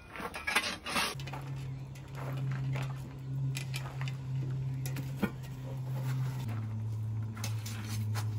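Clinks and clatter of a pan and utensils being handled while a whole chicken is prepared, busiest in the first second. Underneath runs a steady low hum that drops in pitch about six and a half seconds in.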